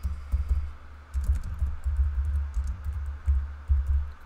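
Typing on a computer keyboard: a quick run of keystrokes, each a sharp click with a dull low thump.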